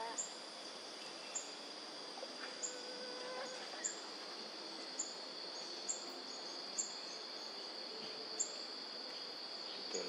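Forest insects keep up a steady high-pitched drone, with short sharp high chirps about once a second and a few faint, distant bird notes.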